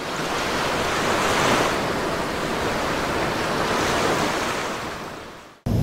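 Sea waves breaking and washing up, swelling twice and then fading out near the end.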